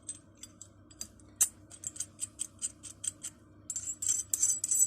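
Metal parts of an antique multitool pipe wrench clicking as they are handled: a run of sharp clicks, about five a second, then a denser scraping rattle near the end.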